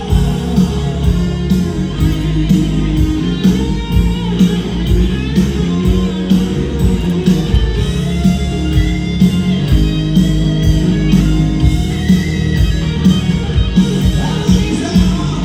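Live rock band playing, with electric guitar to the fore over a steady drum beat and keyboards; the vocals mostly drop out.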